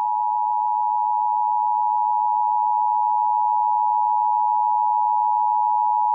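Emergency alert attention tone: one steady, unbroken electronic tone near 1 kHz, sounded ahead of a tornado warning broadcast.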